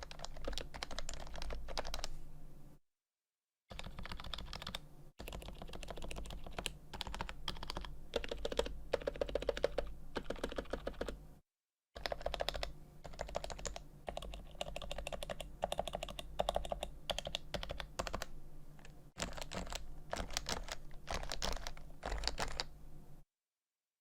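Continuous typing on an HHKB Pro 2 keyboard with Topre switches: 45 g domes, lubed sliders and stabilizers. It makes a dense run of rapid keystrokes that drops to dead silence briefly twice and again about a second before the end.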